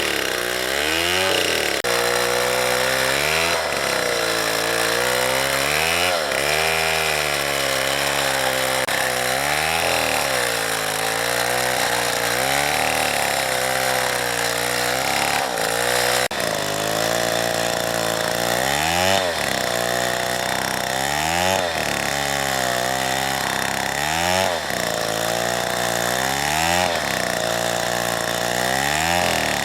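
Two-stroke chainsaw cutting through a tree trunk at high revs. Its engine pitch dips and recovers every two seconds or so as the chain bogs down in the wood and frees up again.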